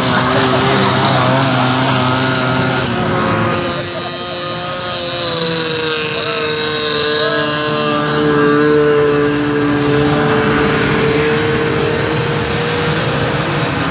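Several vintage two-stroke snowmobile engines running as the sleds drive past one after another. One engine note falls a little in pitch about four seconds in as a sled goes by, then holds steady.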